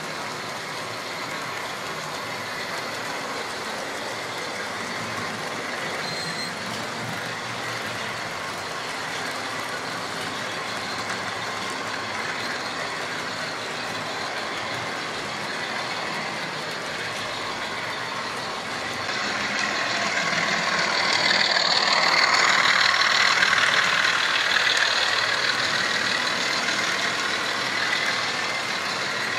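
Model trains running on the layout's track, a steady hum that grows louder about two-thirds of the way through and then eases off.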